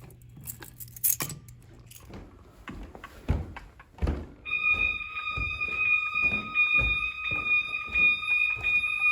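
Fire alarm sounder coming on about halfway through with a steady, high electronic tone and sounding on, over scattered knocks and thuds. A faint low hum is heard before it.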